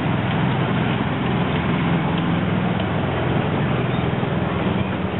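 Ride-on miniature train, a scale model of a Rhaetian Railway Crocodile electric locomotive hauling passenger cars, rolling past: steady noise of wheels on the track with a low hum and a few light clicks.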